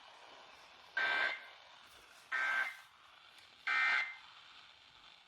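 Emergency Alert System end-of-message signal: three short, identical bursts of SAME digital data tones, each about a third of a second long and about 1.3 seconds apart. It marks the end of the alert that has just been broadcast.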